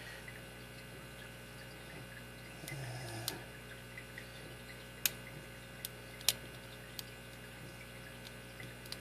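Lock pick and tension wrench working the security pins of a Commando Peacemaker padlock: a handful of small, sharp metallic clicks, the strongest about six seconds in, over a steady electrical hum.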